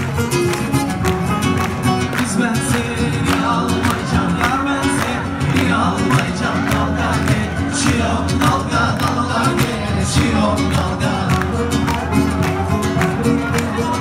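Live band music with plucked string instruments, playing a lively dance tune with a steady beat.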